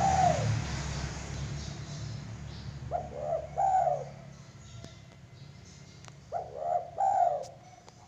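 Zebra dove (perkutut) cooing: a phrase of arched, rolling notes ends just after the start, and two more phrases of about three notes come about three seconds in and about six seconds in. A low hum sits under the first half.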